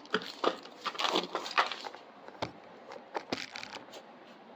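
Packaging being crumpled and handled: a cluster of irregular crinkling and crackling sounds in the first two seconds, then a few single clicks and knocks.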